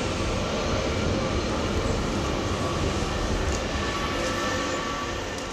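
Vehicle passing over the nearby concrete bridge: a steady heavy rumble with a faint high whine, fading away near the end.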